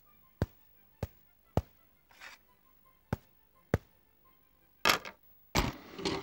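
Cartoon soundtrack of sharp, single taps spaced about every half second, with silence between them, then two short noisy swishes near the end.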